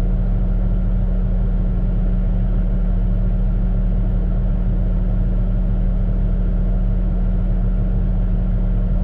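Shantui bulldozer's diesel engine running steadily, a deep, constant hum with no revving or change in pitch.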